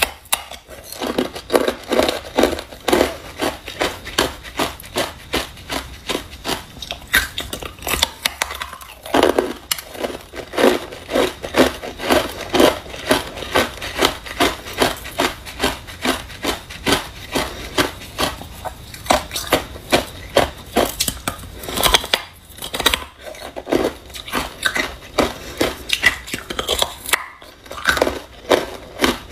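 Crushed ice, frozen together into a clump, being bitten and chewed: a steady run of crisp crunches, about two a second, with a few short pauses.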